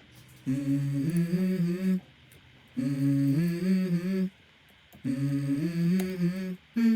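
Intro of a hip-hop song: a short wordless vocal phrase, hummed, repeated three times with short pauses between.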